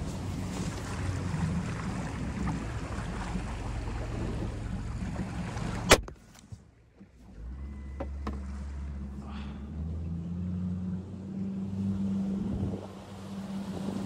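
Small motorboat's engine running steadily. About six seconds in, a single sharp click, after which the engine sound drops away for a second or so before a lower, steady running note comes back.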